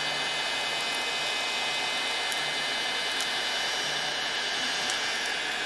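1,500-watt, 500 °C Mastercraft heat gun running steadily, its fan blowing hot air with a constant rushing hiss and a steady high whine.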